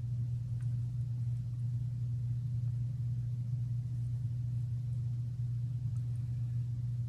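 Steady low hum with a couple of faint small clicks.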